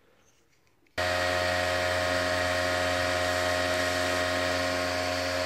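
A San Ace 92 DC cooling fan starts abruptly about a second in, then runs steadily with a whine of several steady tones over an airy hiss.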